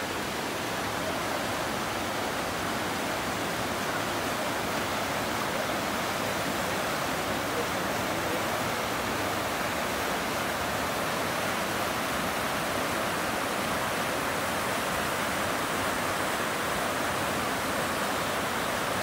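Whitewater rapids of a forest creek rushing steadily: an even, unbroken rush of water.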